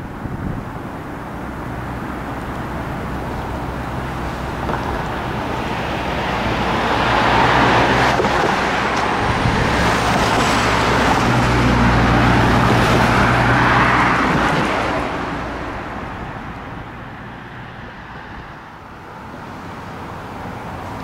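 Road traffic passing: tyre and engine noise swells up over a few seconds, stays loud through the middle, then fades away.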